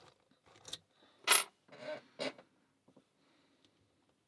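A few short, light metallic clinks and clicks from lock picks, key and a small aluminium padlock being handled, the loudest a little over a second in and two more soon after.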